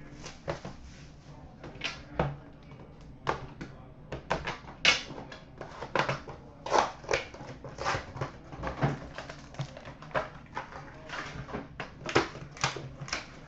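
Hockey card box and its packaging being opened and handled: irregular crinkles, rips and small clicks at uneven intervals.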